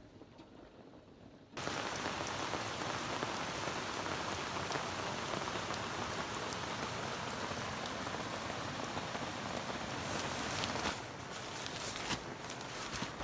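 Heavy rain pouring down, starting abruptly about a second and a half in. A couple of sharp ticks come near the end.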